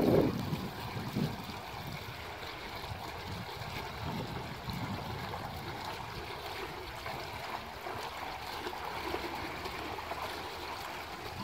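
Fountain jet bubbling and splashing steadily into a shallow pool. Wind buffets the microphone at the very start and briefly about a second in.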